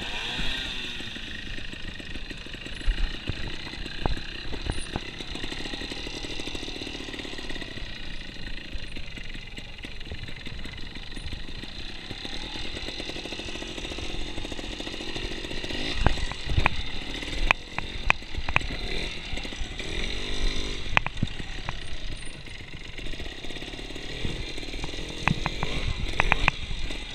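Trials motorcycle engine running at low revs and being blipped, with a quick rise and fall in revs about two-thirds of the way through. Sharp knocks come in clusters, mostly in the second half, as the bike hits rocks and logs.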